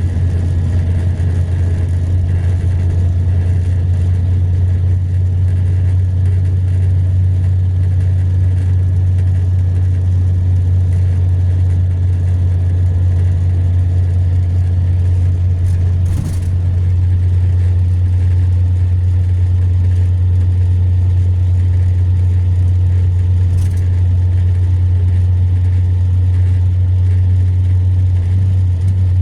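Mercedes-Benz-chassis long-distance coach cruising on a highway, heard from inside the passenger cabin: a steady low engine drone under road noise, with a single brief knock about halfway through.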